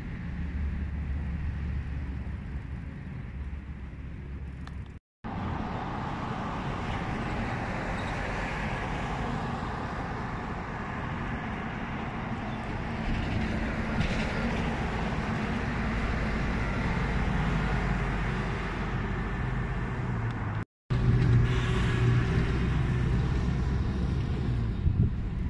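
City street traffic: a steady mix of passing car and bus engines and tyre noise. The sound drops out for a moment twice, about five seconds in and about twenty seconds in.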